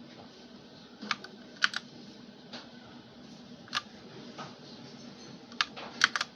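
PC Power K87 mechanical keyboard with linear red switches: about nine separate key presses at uneven spacing, some in quick pairs, over a steady low hum.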